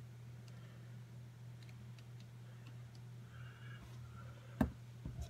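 Steady low hum with a few faint ticks, then a sharp knock a little past halfway and two softer thumps just after, as the wet painted canvas is set back down on the work table.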